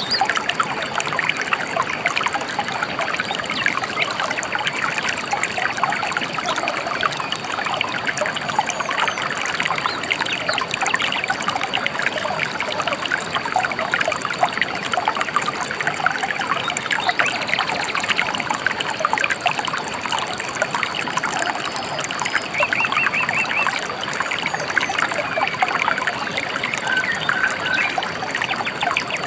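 A gentle river trickling and babbling steadily. A bird gives a short, rapid trill about three-quarters of the way through.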